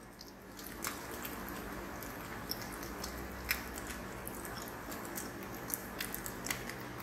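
Chopped bacon frying in olive oil in a stainless steel pan: a steady sizzle with scattered sharp pops.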